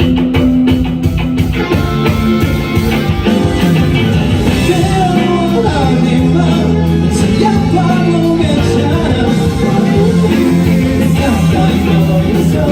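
Live indie rock band playing a chorus, with guitar, bass, drums and a sung melody over them.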